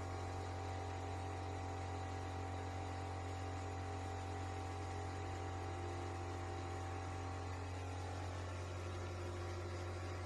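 Vertical machining center powered up and running with a steady electrical hum: one strong low tone with many fainter steady tones above it. A faint higher tone joins near the end.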